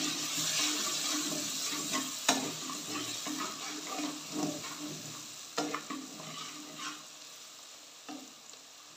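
Onion-tomato masala sizzling in hot oil in a metal pot while a slotted metal spatula stirs and scrapes through it, mixing in freshly added chilli and turmeric powder. A few sharp clinks of the spatula against the pot punctuate the stirring, and the sizzle fades toward the end.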